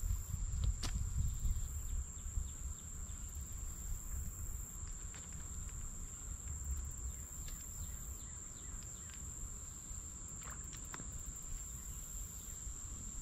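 Insects singing one steady, high-pitched note throughout, over a low rumble of wind on the microphone, with a few faint clicks.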